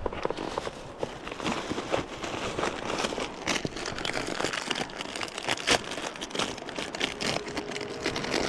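Crinkly plastic wrapper of a packaged croissant crackling and rustling as it is handled and torn open by hand.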